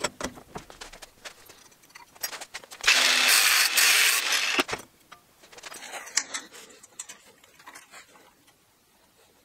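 Small metal clicks and taps from a steel ruler and a bolted square steel bar being handled at a steel bench vise. About three seconds in, a loud, steady rushing noise lasts about a second and a half and stops abruptly.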